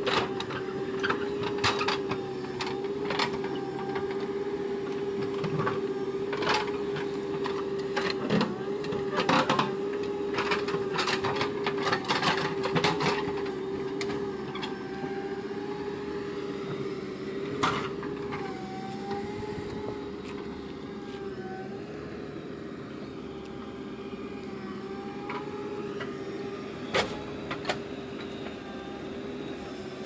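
JCB backhoe loader's diesel engine running steadily under load while the backhoe digs earth, with sharp clanks and knocks from the bucket and arm, many in the first half and a few later on. A higher tone wavers up and down in the second half.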